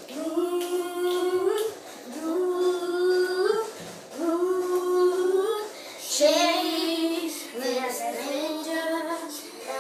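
A young girl singing with no backing: three long held notes, each bending upward at the end, then a quicker run of changing notes.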